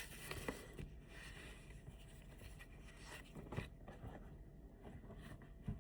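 Faint rustling with a few soft clicks and knocks, the handling noise of objects being moved about by hand, over quiet room tone.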